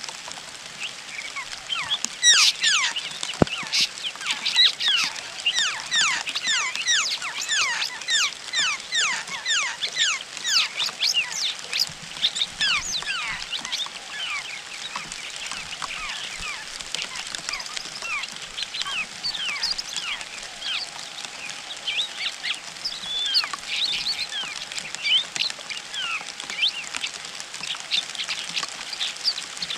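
Laughingthrush nestlings begging: a dense stream of quick, high-pitched, downward-sweeping cheeps, thickest in the first dozen seconds and thinning after.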